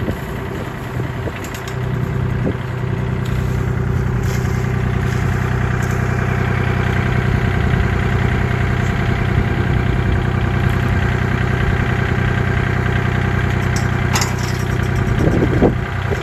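Compact tractor's engine idling steadily, with a couple of knocks near the end.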